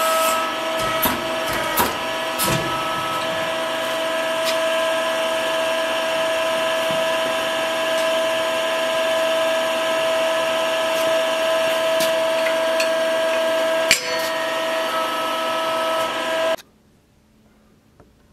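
Electric drive of a metal-forming press running with a steady whine as it presses a thin steel sheet, with a few metal knocks in the first seconds and a sharp click about 14 seconds in. The machine sound cuts off suddenly near the end, leaving faint room tone.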